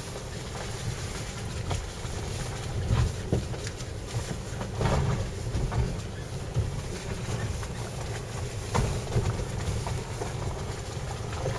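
Land Rover 4x4 driving slowly along a rough, rutted forest track, heard from inside the cabin: a steady low engine and tyre rumble with frequent knocks and rattles as the suspension takes the bumps.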